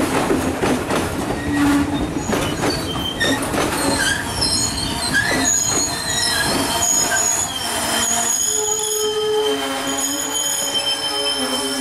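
Passenger train carriages rolling slowly past, wheels clacking over the rail joints, then several high squeals at once from the brakes and wheels as the train slows for the station, starting about four seconds in. Lower-pitched squeals join near the end.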